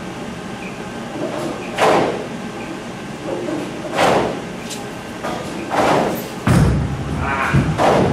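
A few loud, echoing knocks, then about six and a half seconds in a Hammer Dark Web bowling ball is laid down on the lane and rolls with a deep, steady rumble.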